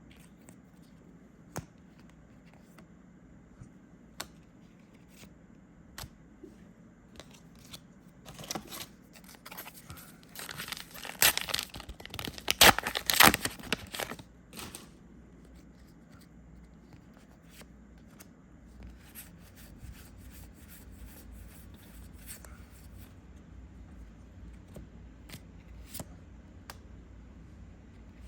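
A foil Star Wars: Unlimited booster pack being torn open and its wrapper crinkled, loud for several seconds in the middle. Light scattered clicks of cards being handled come before and after.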